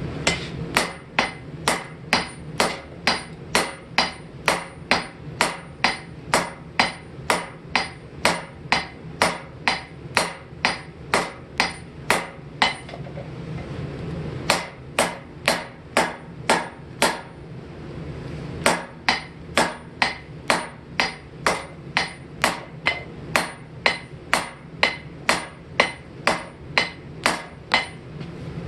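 Blacksmith's hammer forging hot steel on an anvil, about two blows a second, each with a light ring. The hammering stops briefly twice, about halfway through and again a few seconds later.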